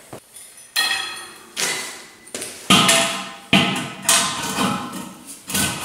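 Enamelled steel Weber kettle grill bowl struck from the inside with a steel rod, a series of about nine sharp metallic knocks, each ringing briefly. The blows are knocking out dents where the leg brackets had pressed into the bowl.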